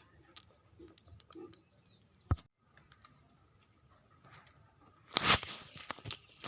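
Pet parrot chewing and crunching with its beak: scattered small clicks, a sharp knock a little past two seconds, and a loud, brief burst of noise about five seconds in.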